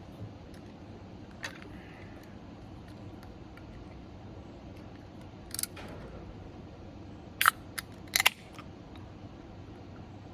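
A beer being handled and opened: a few sharp clicks, a short hiss a little past halfway, then two loud snaps about three quarters of the way through.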